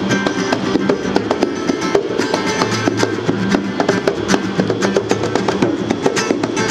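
Acoustic guitar strumming chords together with bongos played by hand in a quick, steady rhythm.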